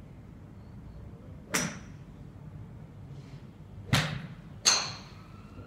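Golf clubs striking balls on a driving range: three sharp cracks, one about one and a half seconds in, then two close together near the end, the last with a brief high ring. One of them is a driver hitting a ball off a tee.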